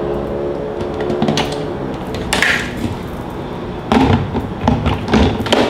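Hard plastic knocks and clicks as a blender's lid is fitted onto its pitcher and the pitcher is set and locked onto the motor base: one sharp knock about halfway through, then a cluster of clatters near the end. Soft background music plays underneath; the blender motor is not running.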